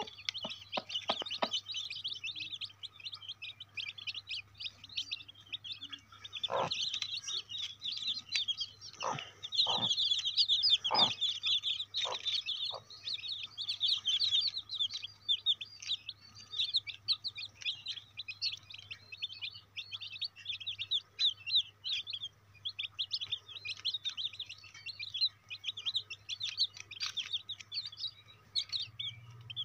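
A brood of newly hatched chicks peeping: a dense, continuous stream of quick high-pitched peeps. A few short, lower sounds come through around the middle.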